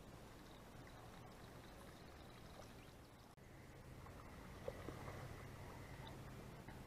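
Near silence: faint outdoor background noise, with a faint low steady hum from about a third of the way in and a couple of brief faint ticks or chirps soon after.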